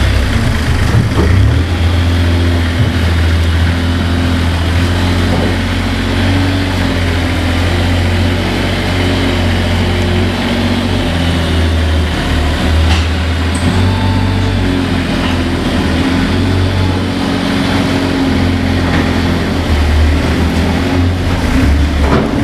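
JCB 403 compact articulated loader's diesel engine running steadily at low speed as the machine moves along, its pitch shifting slightly now and then.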